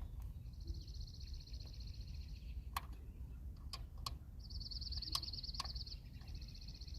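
A few sharp clicks and taps as the sensor spacer and its screw are tightened and handled, scattered through the middle. Behind them, a high, rapid trill repeats three times, each lasting about two seconds.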